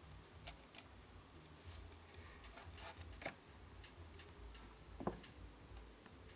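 Faint scattered clicks and taps, a few a second at most, the loudest about five seconds in, over a low hum.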